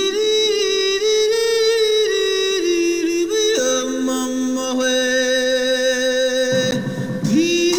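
Unaccompanied singing: a high voice holds long, wavering notes, and about three and a half seconds in more voices join in held harmony; the high voice starts again near the end.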